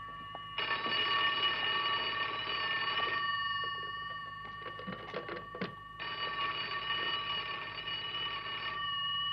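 Telephone bell ringing twice, each ring lasting about two and a half seconds, with a few light clicks in the pause between the rings. A steady high chord, likely the suspense music, is held underneath.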